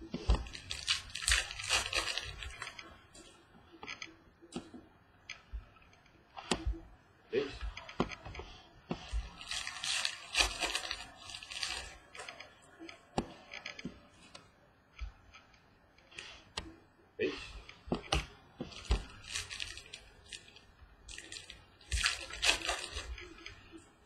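Trading-card pack wrappers torn open and crinkled in three bursts of rustling, at the start, about ten seconds in and near the end. Scattered clicks and taps of cards being set down and handled on a table come in between.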